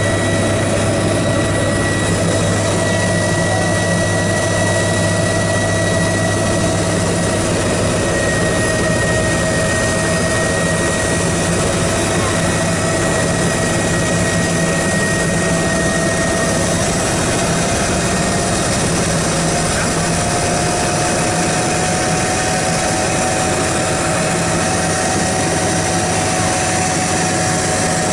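Helicopter engine and rotor heard from inside the cabin as it comes in and sets down: a loud, steady drone with a thin whine that creeps up slightly in pitch in the second half.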